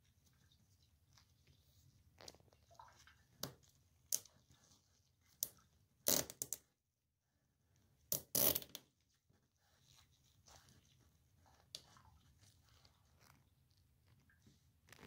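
Gloved hands fitting washers onto the closet bolts of a toilet flange: scattered small clicks and rustling of the glove, with two louder bursts of handling noise about six and eight seconds in.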